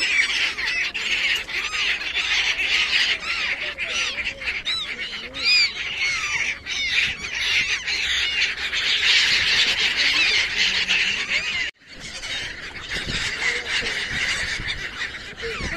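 A large flock of black-headed gulls calling together, a dense, continuous chorus of overlapping squawking cries. The sound drops out for a moment about three-quarters of the way through, then the calling picks up again.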